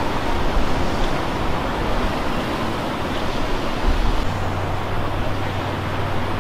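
Wind buffeting the microphone over the steady rush of surf breaking on the beach. A low steady hum joins about four seconds in.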